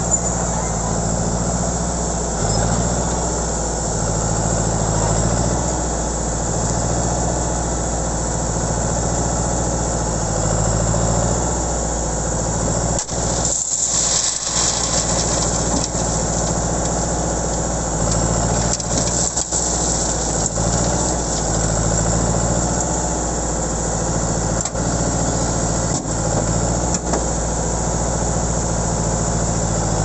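Diesel engine of a tracked crawler carrying an almond harvester, running steadily at working speed. The continuous almond dehusker clatters and hulled almonds rattle into the bin.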